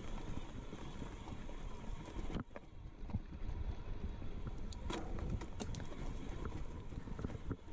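Mountain bike rolling down a bumpy dirt singletrack: tyre rumble and wind buffeting the microphone, with the bike rattling and sharp knocks as it goes over stones and roots.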